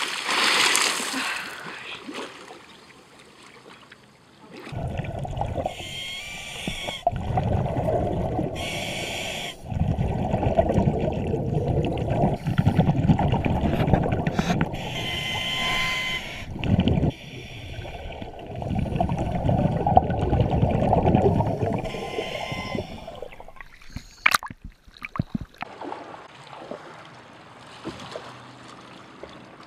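A big splash into the water, then long stretches of muffled, low rumbling and gurgling as the microphone is under water, broken by a few short lulls. Near the end, quieter sloshing water at the surface.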